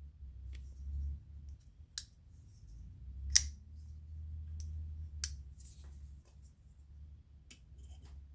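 Asher Throwback folding knife being flicked open and shut by hand: about five sharp clicks of the blade locking and closing, the loudest about three and a half seconds in.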